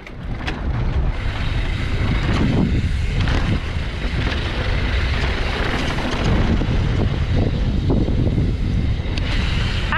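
Mountain bike descending a dirt trail at speed: wind buffeting the microphone over a steady rumble of tyres on dirt, with a few sharp clacks from the bike over bumps.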